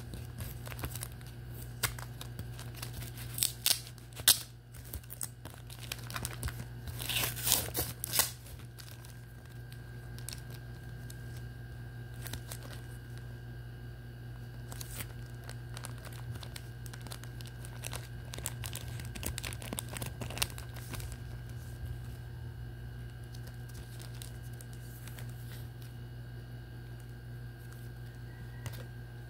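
Brown cardboard and paper packaging torn open and crinkled by hand, with sharp crackling bursts between about three and eight seconds in. Then softer, scattered rustling and crinkling as trading cards in plastic sleeves are handled, which dies away near the end and leaves a steady low hum.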